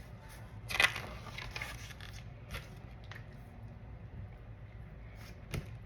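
Paper rustling as a book page is turned: a sharp rustle about a second in, followed by a few softer rustles and one more short one near the end.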